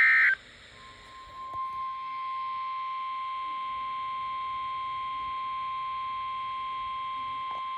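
Emergency Alert System audio: a short screeching digital data burst at the very start, then the NOAA Weather Radio warning alarm tone, one long steady beep that is joined about a second later by several higher steady tones, all holding at an even level.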